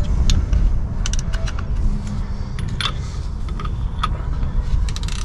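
Hand tools clinking and clicking against the steel pinion yoke and nut of a 10-bolt rear differential while the pinion nut is fitted: irregular metallic clicks and knocks. A low rumble of wind on the microphone runs underneath.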